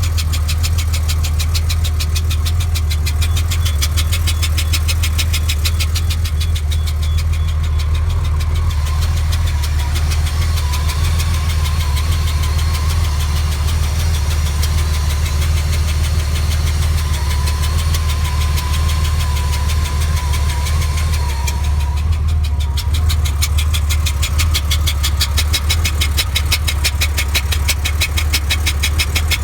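1992 Porsche 965 Turbo's engine idling with a fast, even clicking over its steady hum. The clicking weakens for a stretch in the middle, while a faint wavering high tone comes in, then returns strongly for the last several seconds.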